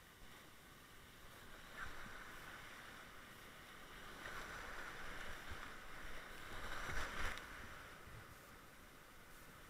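Rushing whitewater of a river weir as a kayak runs down it, with water splashing against the boat. The rush grows louder a few seconds in, with the loudest splashes about seven seconds in.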